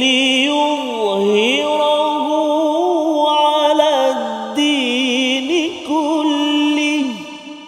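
A man reciting the Quran in the Hijaz melodic mode, in a plaintive, drawn-out style. He holds one long ornamented melisma on a single breath, with wavering turns around sustained notes. It ends in a falling glide about seven seconds in and then rings away.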